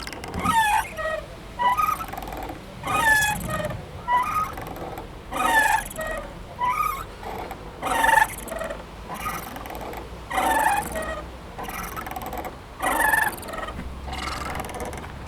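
A playground swing creaking and squeaking in a steady rhythm as it swings back and forth, a loud squeak about every two and a half seconds with fainter creaks in between.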